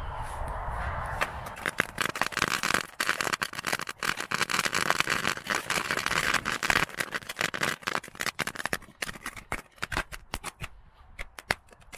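Three packs of small crackling firecrackers lit together: a brief fizz, then a dense, fast crackle of many small pops lasting about nine seconds, thinning to scattered pops near the end.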